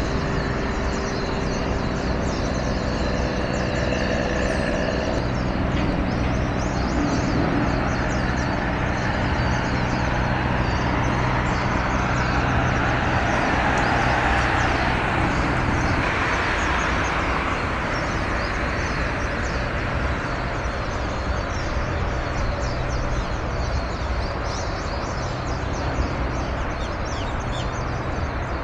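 Steady low engine drone and distant traffic noise, swelling for several seconds around the middle as a vehicle passes and then fading back.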